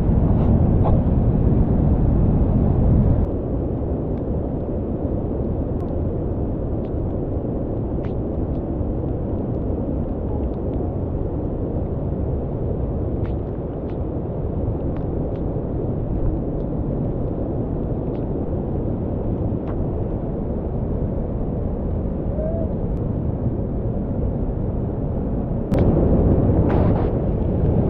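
Steady rushing roar of a flooded, muddy mountain stream in spate, heavy in the low end. It is louder for the first three seconds and again near the end.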